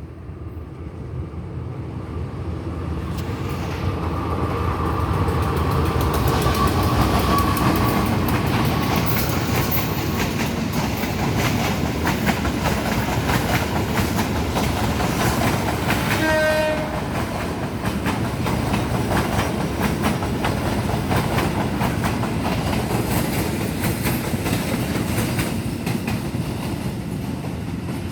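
Train passing at slow speed under a speed restriction for track repair, its wheels clicking steadily over the rail joints, growing louder over the first few seconds as it draws level. A short horn note sounds a little past halfway.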